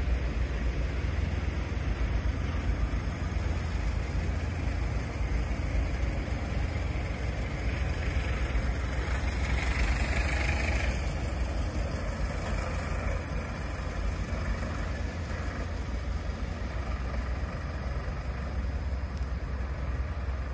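A steady low engine rumble from idling vehicles, with a small truck passing close by about ten seconds in, its engine and tyre noise swelling and then fading.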